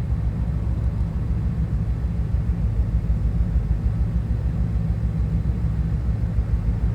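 Steady low rumble with an even faint hiss above it, unchanging throughout.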